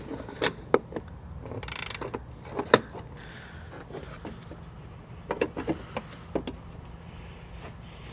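Ratchet with a swivel and short 10 mm socket loosening a bolt on a metal bracket: scattered sharp clicks and knocks of the tool on metal, a quick run of ratchet clicks a little under two seconds in, and another few clicks about five to six seconds in.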